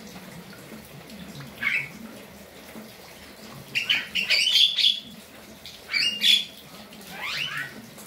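Caged Javan mynas (jalak kebo) calling: a short harsh call about two seconds in, a loud stretch of rapid chattering in the middle, then more squawky calls that sweep down in pitch near the end.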